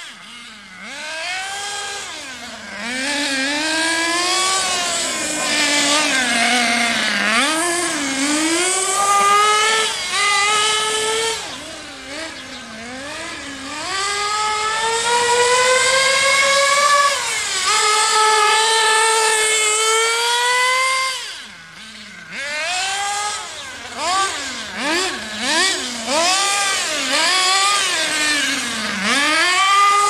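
HPI Trophy 3.5 nitro buggy's small two-stroke glow engine revving up and dropping off again and again as the buggy accelerates and slows through corners, its pitch rising and falling. About two thirds of the way in it goes quieter for a moment, then gives a string of quick short revs.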